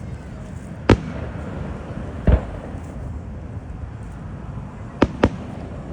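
Fireworks bursting: four sharp booms, one about a second in, one a little after two seconds, and two in quick succession near the end, over steady background noise.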